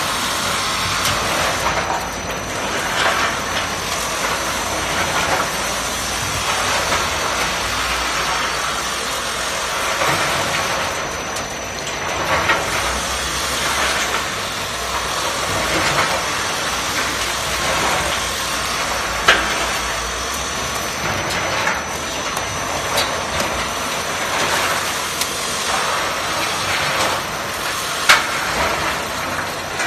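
Fire dismantling machine for stripping capacitors and components from circuit boards, running steadily with scattered sharp clicks and rattles. The sharpest click comes near the end.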